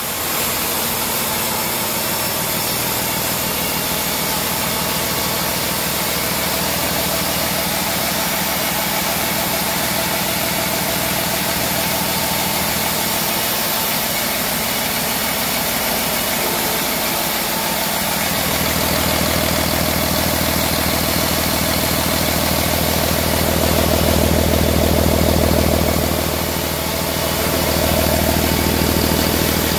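2008 Cummins ISB 6.7L inline-six turbo diesel idling steadily on a test stand. It grows louder and fuller in its last third, most of all for a few seconds about three-quarters of the way in, with a brief dip near the end.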